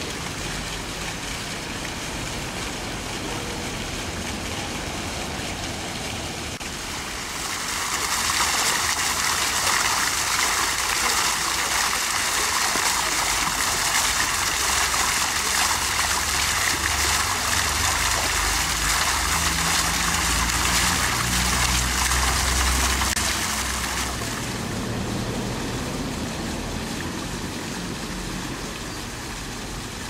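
Water from a stone park fountain jetting up and splashing down its concrete blocks into shallow basins: a steady rush of falling water. It grows louder and brighter for a long stretch in the middle, then eases back.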